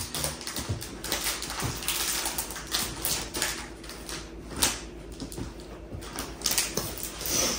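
Brown kraft paper rustling and crinkling in irregular bursts as it is handled and folded for gift wrapping.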